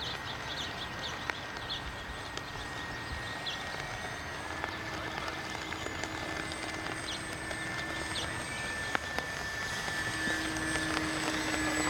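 Steady whine of a radio-controlled model airplane's motor as the plane flies overhead, its pitch shifting a little about four seconds in and again near the end, where it grows slightly louder. Short high chirps come and go over it.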